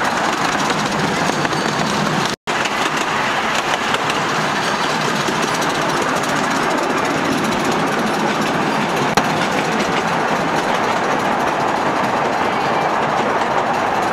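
Steady running noise of a small steam-hauled park train rolling along its track, heard from an open passenger car. The sound cuts out for an instant a couple of seconds in.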